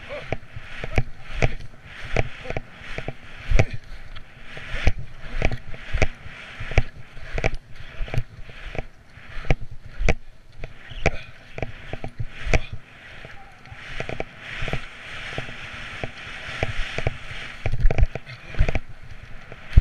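Rossignol alpine skis scraping and swishing over packed, chopped-up snow through moguls, with irregular sharp knocks and clatter as the skis hit the bumps.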